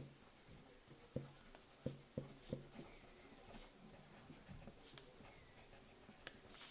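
Pencil writing on notebook paper: faint scratching, with a handful of soft taps in the first three seconds.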